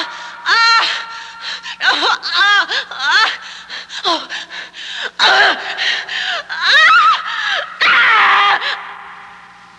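Haunted-attraction sound effects: a string of high shrieking and wailing voices that swoop up and down in pitch, over a steady low hum. The sound trails off near the end.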